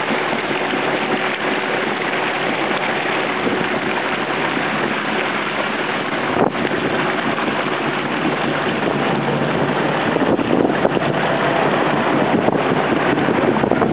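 Boat under way: a steady rush and splash of water along the hull over the low hum of its engine, with wind on the microphone.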